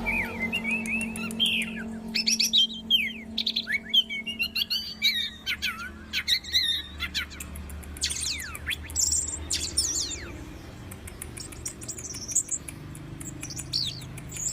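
Orange-headed thrush singing a rapid, varied song of whistled notes, glides and short trills, the phrases coming thick at first and more spaced out in the second half.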